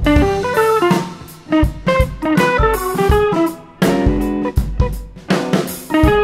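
Intro music: a guitar picking a quick run of notes over a drum kit.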